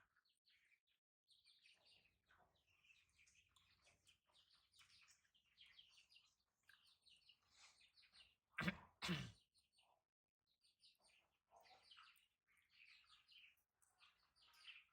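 Faint, high-pitched chirping calls, many short notes following one another, with two louder brief sounds close together about nine seconds in.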